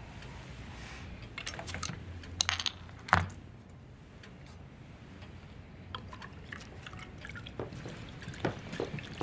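Glass beer bottle picked up with a few sharp clinks, the loudest about three seconds in, then beer poured from the bottle into a glass.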